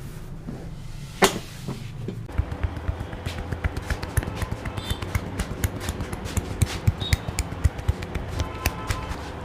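One sharp, loud crack about a second in, typical of a neck joint popping during a chiropractic neck adjustment. It is followed by a rapid, uneven run of smaller clicks and knocks over background music.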